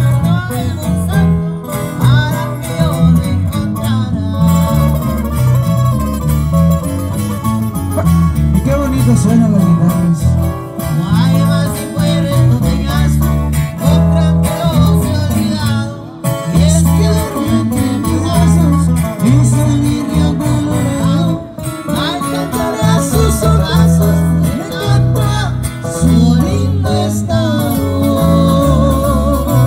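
Live norteño band playing: acoustic guitars strumming and picking over a steady, bouncing bass line.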